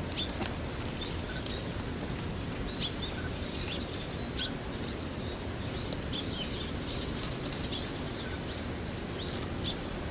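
Small birds chirping, many short high calls coming in quick clusters throughout, over a steady low background hum of outdoor noise.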